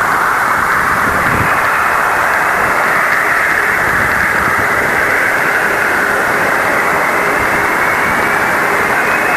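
Voyager 1 plasma wave instrument data from Jupiter's magnetosphere played back as sound: a steady, loud hiss of radio noise cut off sharply above about 2.5 kHz, strongest in a band just below that edge, with faint steady tones showing through now and then.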